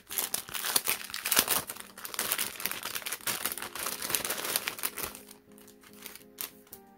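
Packaging crinkling and rustling as merchandise is unwrapped, dense for about five seconds and then dying down to a few light rustles. Soft piano background music plays underneath.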